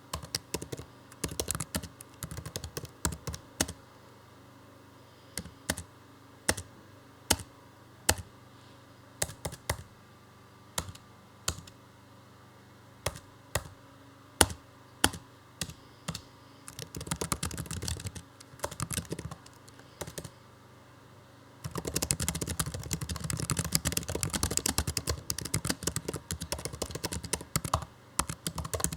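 Computer keyboard being typed on: single keystrokes spaced a second or so apart at first, then short runs of quick typing, and from about two-thirds of the way in a long stretch of fast, continuous typing.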